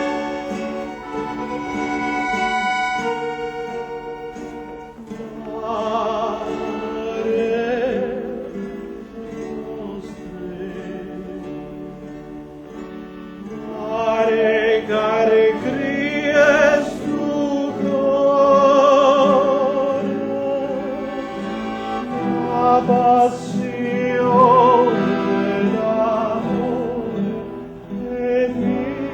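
Live music: a solo voice singing with a marked vibrato over instrumental accompaniment, the voice entering about five seconds in after held instrumental notes.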